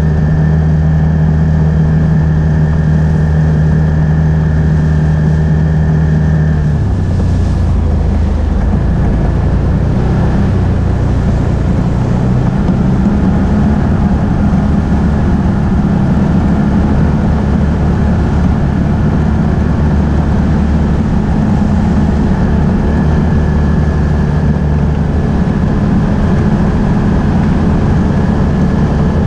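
Can-Am Outlander ATV engine running steadily under way; its pitch drops sharply about seven seconds in and then holds at the lower, rougher note.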